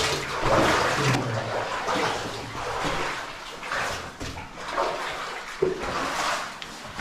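Shallow cave-stream water splashing and sloshing in irregular swishes, as someone wades or crawls through it.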